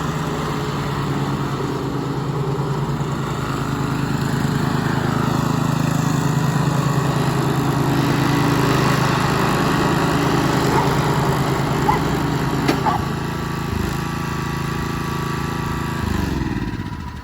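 Cub Cadet CC600 lawn mower's 224 cc engine running steadily, then slowing and winding down near the end as it is shut off.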